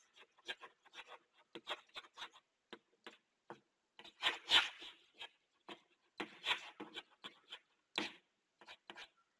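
Chalk writing on a blackboard: a string of short taps and scratches, with longer, louder scrapes about four and a half and six and a half seconds in.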